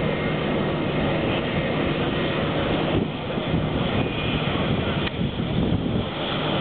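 Airbus A320 airliner's jet engines running at low taxi power as the aircraft rolls past, a steady rushing noise.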